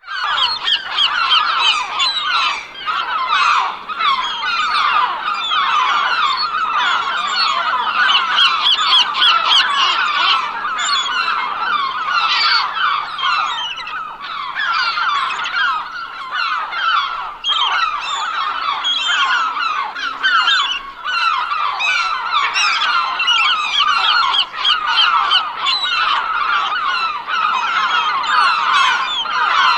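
A large flock of gulls calling all at once, a dense unbroken chorus of many overlapping cries.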